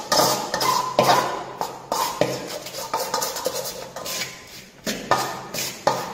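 Metal trowel scraping and knocking against a metal mixing basin as cement and water are mixed by hand, in irregular strokes a few times a second with a brief metallic ring after some of them and a short lull before the end.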